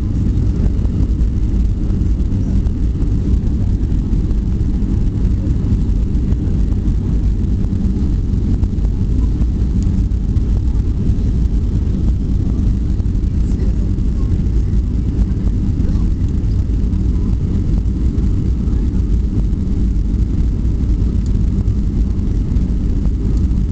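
Steady low rumble of a Boeing 737's turbofan engines and the rushing air, heard from inside the passenger cabin on the landing approach.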